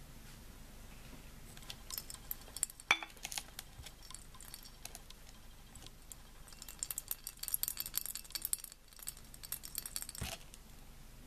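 Light clinks and ticks of glassware: a few small clicks, one sharper knock about three seconds in, a quick run of fine high ticks from about seven to ten seconds, and another knock near the end.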